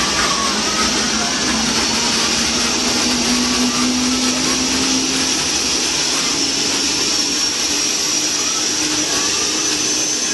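Helicopter running steadily: a loud, even rush of engine and rotor noise with a high whine, holding constant throughout.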